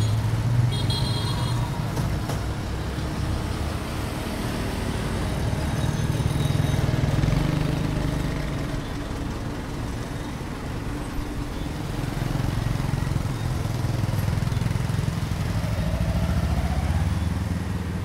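Dense street traffic, mostly motor scooters and motorbikes running past in a continuous low engine drone that swells and eases as vehicles go by. Brief high horn beeps sound about a second in.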